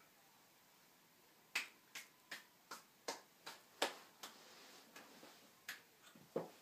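A run of about a dozen sharp, short clicks made by a person's hands, roughly three a second, starting about a second and a half in.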